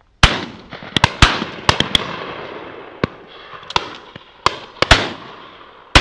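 Shotguns firing in a rapid volley at driven birds overhead: about a dozen shots from several guns, some close and loud, others farther off, each ringing out briefly. The loudest shot comes about a quarter second in.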